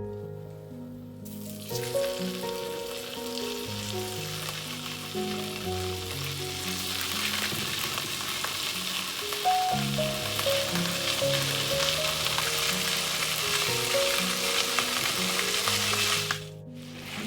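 Food sizzling and frying in a hot pan, starting about a second in and cutting off suddenly near the end, over background music.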